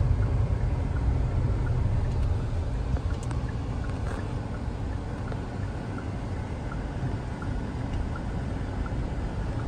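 Car cabin noise while driving through slow town traffic: a steady low rumble of engine and tyres heard from inside the car.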